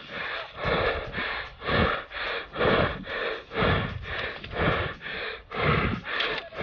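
A man panting heavily and fast close to the microphone, a loud breath about every half second, out of breath from running.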